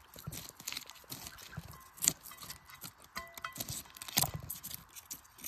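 Irregular clicks and knocks, with two louder knocks about two and four seconds in.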